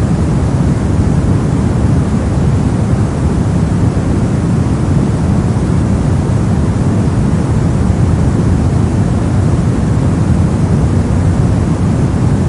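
Steady, unchanging synthetic noise for sleep and focus, a deep rushing hiss with most of its weight in the low range and little at the top.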